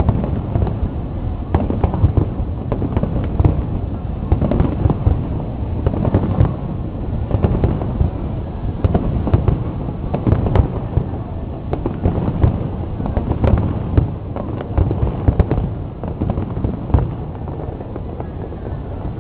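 Fireworks display: aerial shells bursting in quick succession, a dense run of bangs that thins out near the end.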